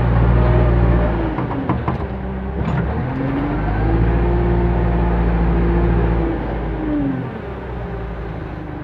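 JCB 3CX backhoe loader's diesel engine working under load as the front bucket scoops and lifts soil. The engine note dips about a second and a half in, climbs and holds high from about three seconds in, then falls away near the end to a lower, quieter run as the load reaches the truck.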